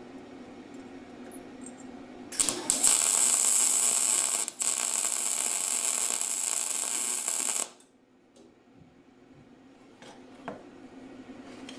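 Argon-shielded MIG welder arc laying a short weld bead on a threaded steel pipe joint: a loud, steady crackling hiss starts about two seconds in, breaks for an instant near the middle, and cuts off sharply about five seconds later. A low steady hum sits underneath.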